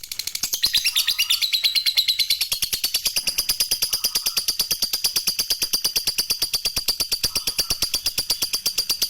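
Lovebird singing 'ngekek': one long unbroken chattering run of rapid, harsh, high notes, about ten a second, held at an even pace.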